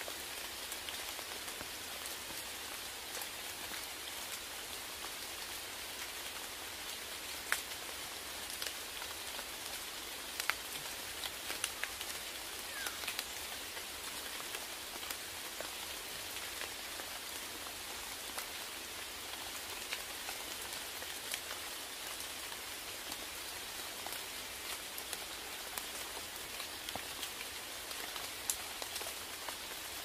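Steady rain falling, an even hiss with scattered sharp taps of single drops close by, a couple of them louder about seven and ten seconds in.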